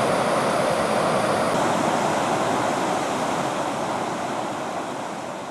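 Steady rushing noise of a waterfall and whitewater rapids, fading out gradually over the last two seconds.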